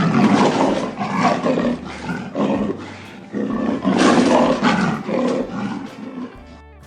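Lion roaring in two long bouts, the second starting about halfway through, then cutting off abruptly.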